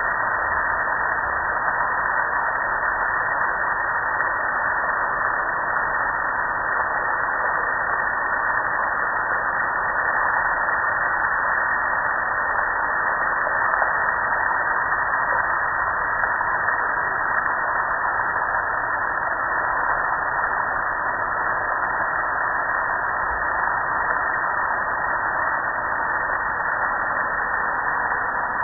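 Water spraying steadily onto a metal gas grill and running off it, a constant hiss.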